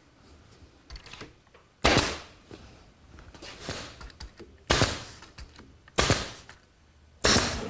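Pneumatic brad nailer firing four times, a second or more apart, driving brads through a quarter-inch birch plywood back into the case; each shot is a sharp snap that trails off briefly.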